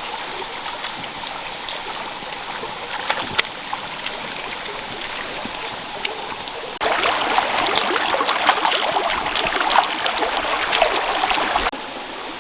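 Stream water running and trickling, with scattered small splashes and ticks. About seven seconds in it suddenly becomes louder and fuller for about five seconds, then drops back just as suddenly.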